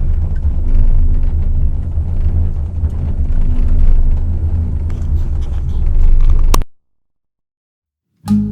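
Steady low rumble heard from inside a moving gondola cable-car cabin. It cuts off suddenly about two-thirds of the way through, and a short silence follows.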